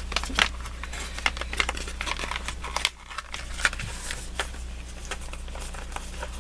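Paper and packaging rustling, with many small irregular clicks and taps as craft supplies are handled, over a steady low hum.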